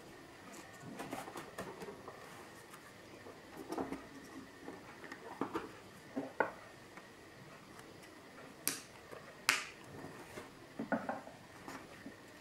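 Scattered light clicks, taps and scrapes of a plastic key fob case being handled and separated into its halves, with two sharper clicks about two-thirds of the way through.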